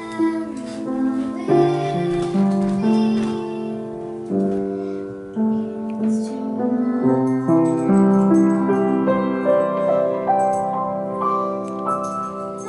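A young girl singing a slow song, holding long notes, with piano accompaniment.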